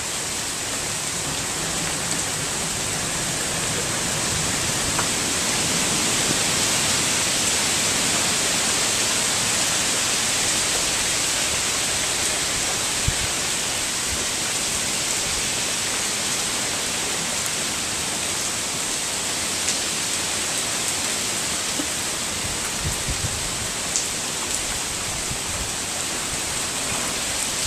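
Heavy hurricane rain falling steadily, a constant hiss with a few faint drips and taps, and the wind swelling a little at times.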